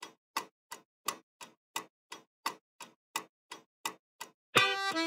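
Steady clock-like ticking, about three even ticks a second. Loud music cuts in near the end.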